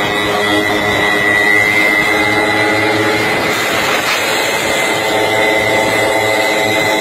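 Small motorcycle engine running at steady high revs, with a steady high whine over it.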